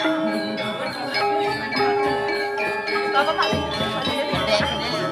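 Balinese gamelan music: many overlapping ringing tones from struck metal keys and gongs, with quick high metallic strikes running through it.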